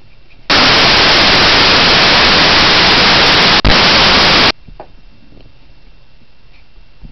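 A loud burst of static hiss lasting about four seconds. It cuts in and out abruptly, with a split-second break shortly before it ends.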